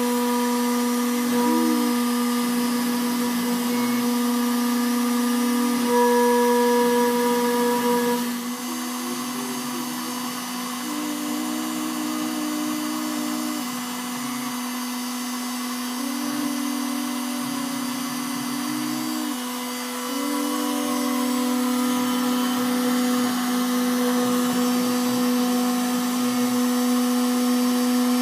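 CNC cutting machine running with a steady motor whine, joined every few seconds by shorter, higher motor tones that start and stop as the machine moves.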